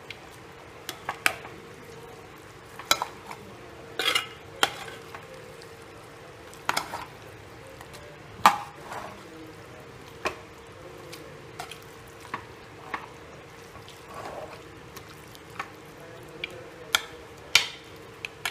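Metal ladle stirring chicken curry in a metal pot: irregular clinks and scrapes as it knocks and drags against the pot's sides, over a faint steady hum.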